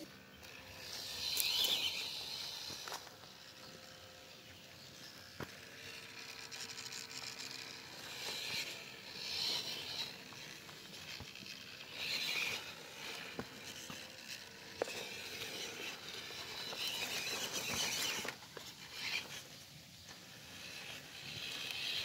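MN99S radio-controlled 4x4 crawler's small electric motor and gears whining in short bursts as it is throttled over dirt and grass, with tyres scuffing the ground and a few clicks.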